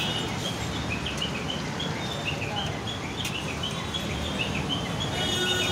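Bread pakoras deep-frying in a large kadai of hot oil: a steady sizzle. Many short, high chirps are scattered over it.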